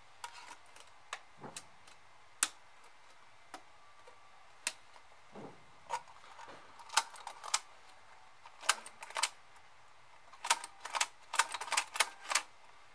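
Irregular sharp clicks and taps of small plastic and metal parts being handled inside a CD changer mechanism, sparse at first and coming in quick clusters in the second half.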